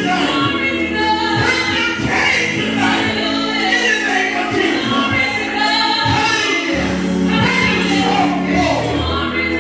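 Gospel praise team singing through microphones, a woman leading with other voices joining, over live instrumental accompaniment with a steady beat.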